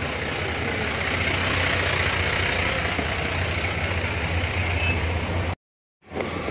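A vehicle engine idling, a steady low hum under street noise. The sound drops out completely for about half a second near the end.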